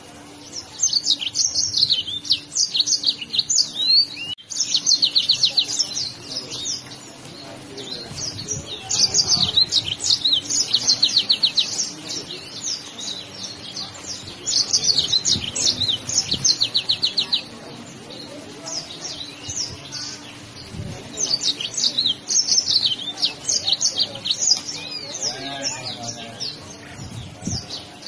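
Yellow-fronted canary singing energetically: repeated bursts of fast, high trills and chattering phrases, each a few seconds long, with short pauses between.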